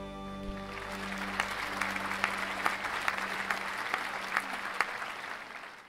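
People clapping their hands, starting about a second in, with a few sharp single claps standing out, over the last held notes of soft background music that fade away. Everything fades out at the end.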